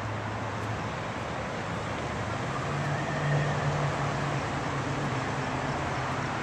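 Road traffic noise: a steady rush with a low engine hum that shifts up in pitch and grows a little louder about two and a half seconds in.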